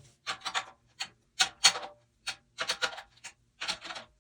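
Light, quick taps on a 14x8 maple/mahogany snare drum's coated batter head, in irregular clusters of two or three, as it is tuned up around the lugs.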